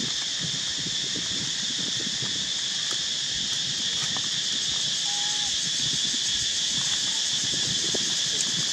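Steady, high-pitched drone of an insect chorus, with dry leaves rustling under the monkeys' feet and hands and a brief faint chirp about five seconds in.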